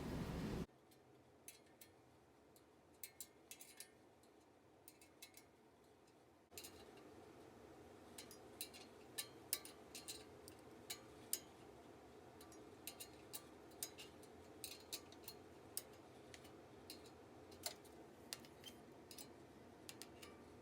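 Faint, irregular metal clicks and clinks of a 1/2-inch wrench working the nuts that hold a motorcycle's slip-on muffler.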